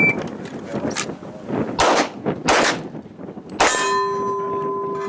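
Pistol time trial on a shot timer: the timer's start beep right at the start, then pistol shots about two seconds in, half a second later and again about a second after that. The last shot is followed by a steel target ringing on.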